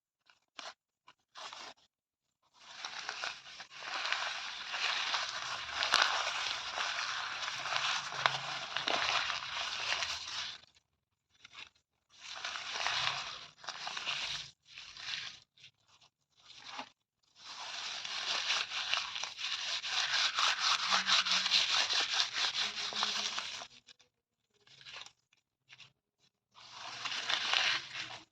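Paper being torn: two long, drawn-out tears of several seconds each, with shorter rips between them and near the end, separated by brief silences.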